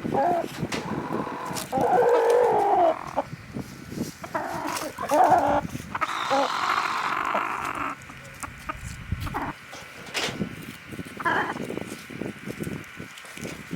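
Flock of free-range chickens clucking and squawking, separate calls a second or two apart, with one longer, drawn-out call about six seconds in that lasts some two seconds.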